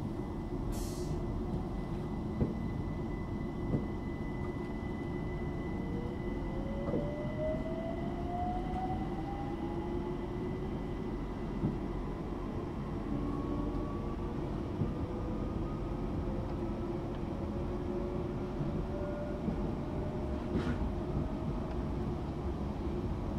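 Cabin of a Class 378 electric multiple unit: traction motors whining and rising in pitch as the train picks up speed, over a steady rumble of wheels on rail. A few light knocks and two short hisses, one near the start and one about 20 seconds in.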